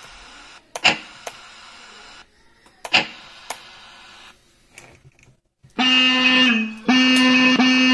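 RC sound module for a 1/16 Jeep playing through a small handheld loudspeaker: two sharp bangs, each trailing off in a fading hiss, then two steady blasts of a vehicle horn, the second longer.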